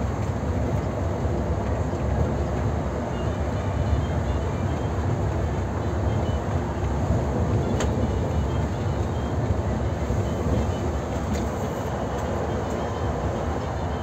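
Steady engine and road noise of a large vehicle heard from inside its cab while driving along a paved highway, with a low rumble and a couple of faint ticks.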